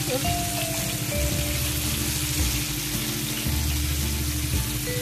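Background music with steady notes and a regular beat, over the even sizzle of battered chicken deep-frying in a wok of hot oil.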